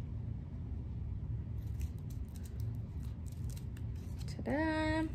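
Small craft scissors snipping through folded paper: a run of short, crisp snips over a few seconds, above a steady low hum.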